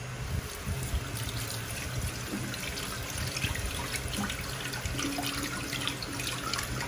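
Water from a kitchen tap running and splashing as a raw chicken breast is rinsed by hand over a bowl in a stainless steel sink.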